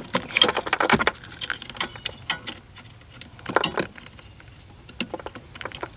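Plastic wiring-harness connectors being unclipped from a car audio amplifier: a cluster of clicks and rattles in the first second, then scattered clicks about two, three and a half, and five seconds in.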